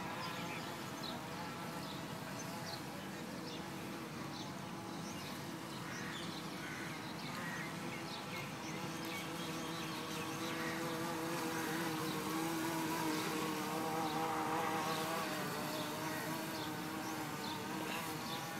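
Electric RC model speedboat (3S-powered, ESC-controlled) running out on the water: a steady, high buzzing whine from its motor and propeller, getting louder past the middle of the run.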